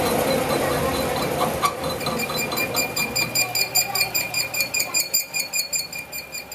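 Metal lathe turning a steel truck axle hub, the tool cutting into the spinning bore and face. From about two seconds in the cut sets up a steady high-pitched squeal that pulses several times a second.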